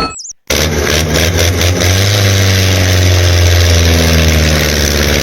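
Engine running steadily with a low hum, cutting in abruptly about half a second in after a short click.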